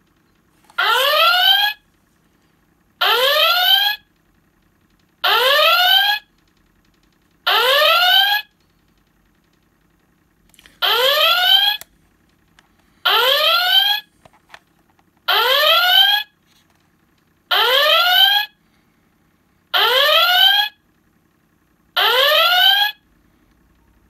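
ThinkGeek Star Trek Enterprise intercom door chime playing the original-series red alert klaxon through its small speaker, set off by its motion sensor: a rising whoop repeated ten times, about every two seconds.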